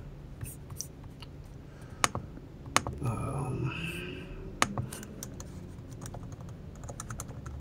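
Irregular sharp clicks of typing, scattered a second or so apart, over a low steady hum.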